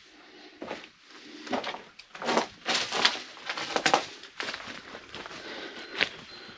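Irregular footsteps on forest ground strewn with dry grass, needles and stone. A short high bird note near the end.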